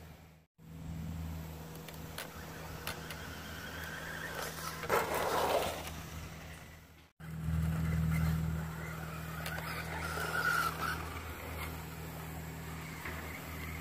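Team Associated T4 electric RC stadium truck, with a brushless motor, driving on a dirt trail, its tyres running over loose dirt. The sound drops out to silence twice, about half a second in and about seven seconds in.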